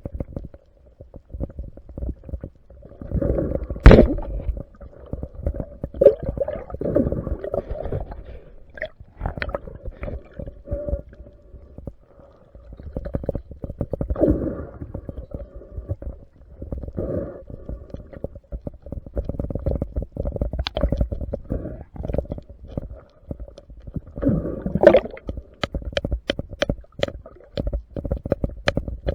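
Underwater sound as picked up by a camera in a waterproof housing: low, uneven gurgling and rumbling of moving water and bubbles, swelling now and then, with a sharp click about four seconds in and a quick run of sharp clicks near the end.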